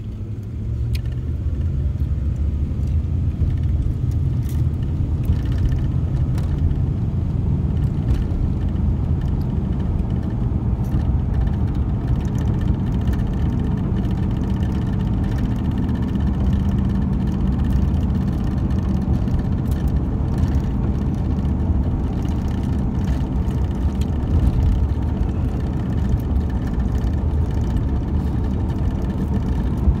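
Car driving, heard from inside the cabin: a steady low rumble of engine and road noise that grows louder about a second in as the car pulls away.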